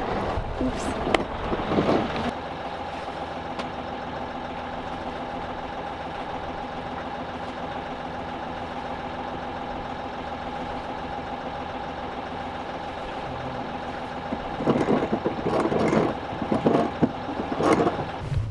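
A boat engine idles with a steady hum. About three-quarters of the way in, louder irregular noises join it.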